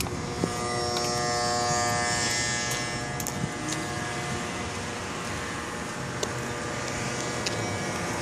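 A steady mechanical buzz holding one pitch, strongest in the first few seconds and weaker after, over outdoor traffic noise.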